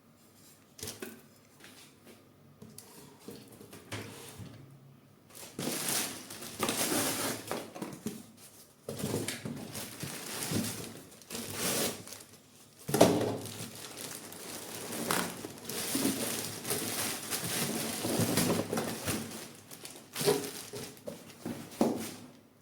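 Packaging being unwrapped by hand: irregular crinkling, rustling and tearing in bursts, with one sharp knock about halfway through.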